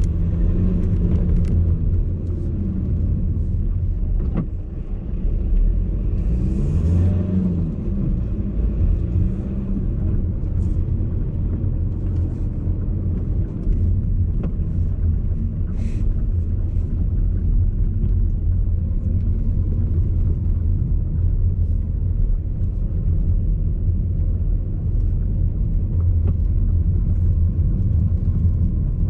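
A VW Golf Alltrack's cabin at low speed over uneven road: a steady low rumble with scattered sharp knocks and rattles, the rattling the owner traces to the passenger-side suspension.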